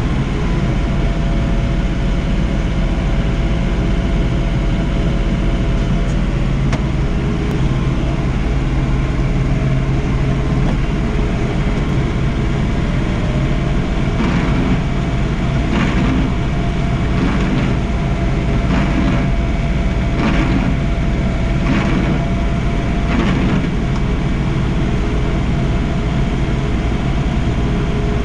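John Deere 3046R compact tractor's diesel engine running steadily under snowblowing work. Partway through, a regular run of about seven short bursts comes roughly every second and a half over the engine.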